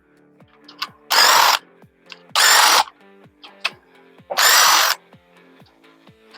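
Power tool run in three short bursts of about half a second each, one to two seconds apart, working the fasteners of an engine being torn down.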